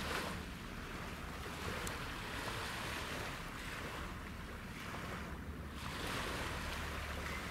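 Wind on the microphone and small waves washing, swelling and fading every couple of seconds, over a low steady hum from the ships' engines.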